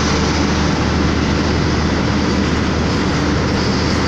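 Steady drone inside a truck cab at road speed: the diesel engine running with tyre noise from the wet road.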